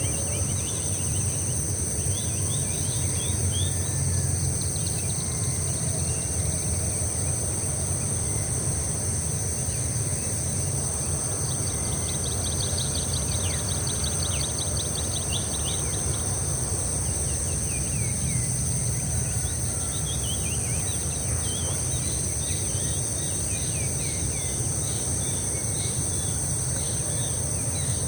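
Outdoor nature ambience: a steady, high-pitched insect chorus, with many short bird calls and a rapid run of calls about twelve seconds in, over a constant low rumble.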